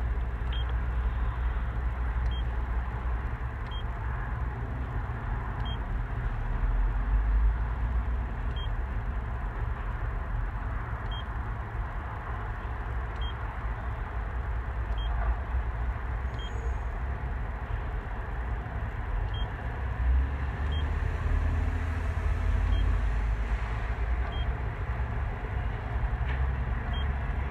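Short single beeps from a Cat C Series excavator monitor panel's keypad as its buttons are pressed, about a dozen at irregular intervals, over a steady low rumble.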